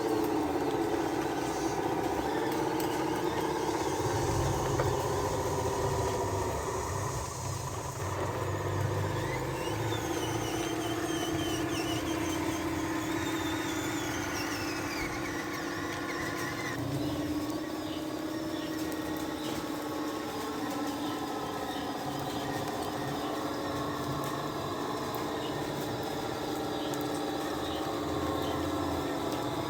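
Electric motors of radio-controlled toy trucks whining steadily, their pitch shifting as they change speed. A higher whine rises and then falls about ten to sixteen seconds in, and the tone changes abruptly soon after.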